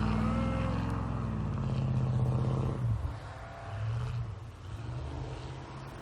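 Pickup truck engine running steadily under load, then easing off about three seconds in, with a brief rev a second later before settling lower.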